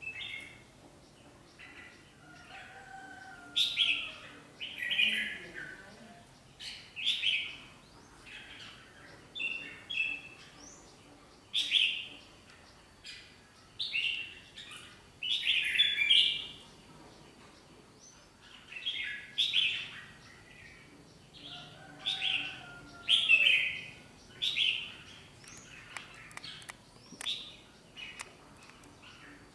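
Caged red-whiskered bulbuls calling back and forth in a territorial face-off between a lure bird and a wild-caught pair: short, loud chirping phrases every second or two.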